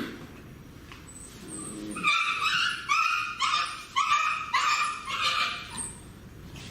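A puppy crying in a quick run of about six short, high-pitched yelps, starting about two seconds in. It is in pain as mangoworm larvae are pressed out of its skin.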